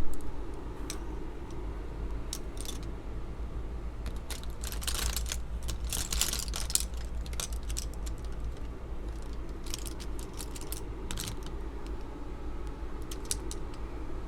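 Makeup brushes and an eyeshadow palette being handled: scattered light clicks and short scratchy brushing sounds, busiest in the middle, over a steady low hum.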